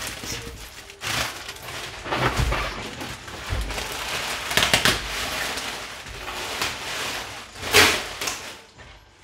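Plastic sheeting, black plastic bags and clear wrap, crinkling and rustling as it is pulled off a wooden shipping crate, with several louder crackles along the way.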